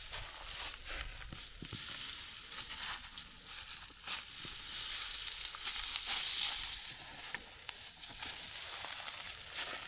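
Cassava plant being pulled up by its stems from dry ground: crackling and rustling of dry leaf litter and soil breaking as the roots tear free, with many small snaps. The crackle swells for a couple of seconds about halfway through.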